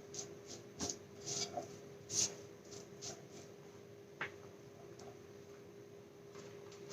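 Boiled potatoes being added to a wok of fried onions: a handful of light knocks and scrapes, the loudest a little over two seconds in, over a faint steady hum.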